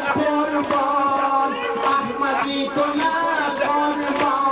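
A man chanting a mourning lament in long held notes, over steady rhythmic slaps of mourners beating their chests in matam.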